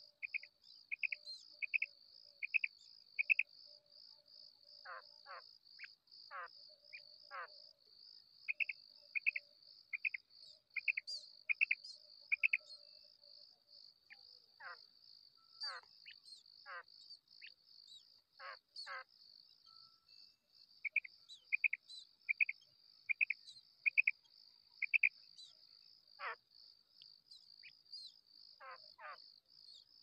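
Female common quail calls: short sharp notes in runs of about six, with falling notes between the runs. They sound over a steady high insect trill.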